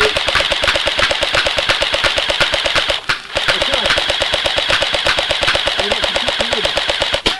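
Airsoft gun firing on full auto as covering fire: a long rapid burst, a brief pause about three seconds in, then a second long burst that stops just before the end.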